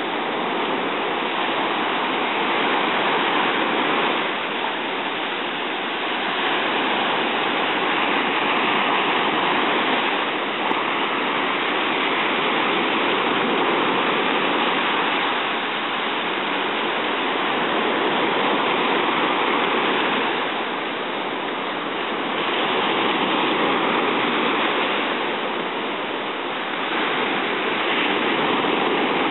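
Ocean surf breaking and washing up the beach: a steady rushing that swells and eases every few seconds.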